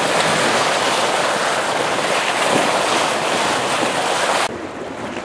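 Steady rush of water along a J/70 sailboat's hull and wind blowing across the microphone while it sails at about 8 knots; the rushing cuts off sharply about four and a half seconds in.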